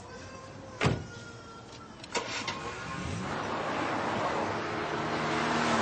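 Car door slamming shut twice, then the car's engine starting and running, getting steadily louder.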